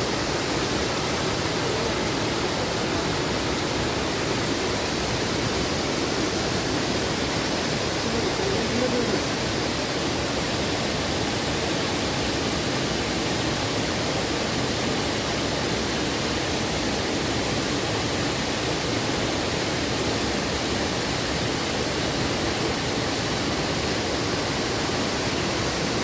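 Waterfall: falling water rushing in a steady, even roar.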